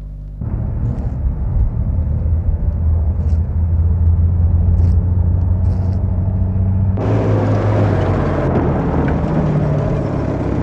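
Steady low mechanical rumble with a deep hum, changing abruptly about half a second in and again about seven seconds in, where it becomes noisier and brighter.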